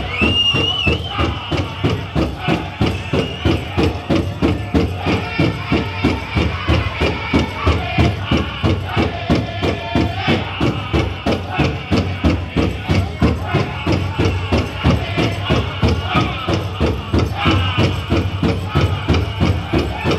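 Powwow drum group singing a chicken dance song: a big drum struck in a steady, fast beat of about three strikes a second under high-pitched group singing. Jingling from the dancers' leg bells rides on the beat.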